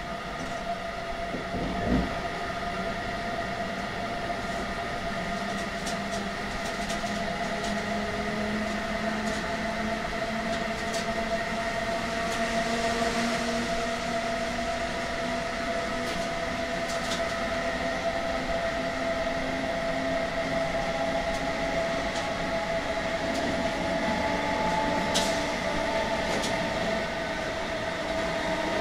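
Adtranz/ABB Micas-S GTO traction inverter of a DB Class 101 electric locomotive, heard from the passenger coach coupled behind it: a steady whine of several pitched tones over running noise, its lowest tone slowly rising in pitch. A thump about two seconds in, and a few faint clicks.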